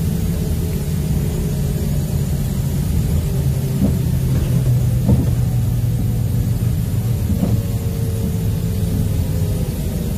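Inside a moving LiAZ 5292.22-01 city bus: its MAN compressed-natural-gas engine and drivetrain running with a steady low rumble of road and tyres. A few short knocks or rattles come about four, five and seven and a half seconds in.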